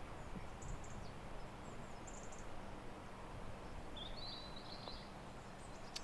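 Faint outdoor ambience with a few short, high bird chirps and a brief chirping trill about four seconds in.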